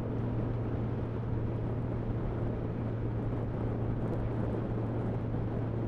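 A motorcycle riding at road speed: steady wind and road noise over a constant low hum.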